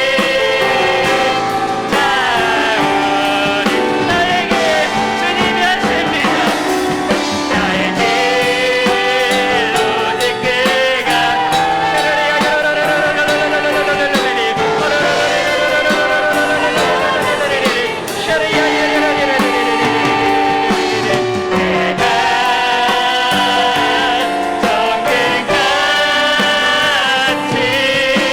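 A church praise team singing a worship song, with voices over piano and drums.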